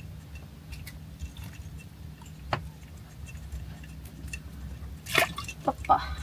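Scattered sharp clicks and metallic clinks of fishing gear being handled, one about halfway through and a quick cluster near the end, over a steady low hum.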